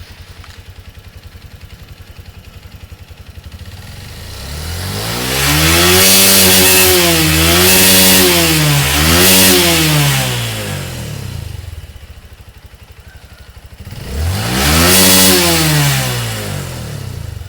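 Honda CRF150 single-cylinder motorcycle engine revved up from idle and held high, its pitch dipping and rising a few times at the top, then dropping back to idle before a second shorter rev near the end. After an ECU remap it now revs cleanly to about 11,000 rpm instead of hitting the limiter near 9,000.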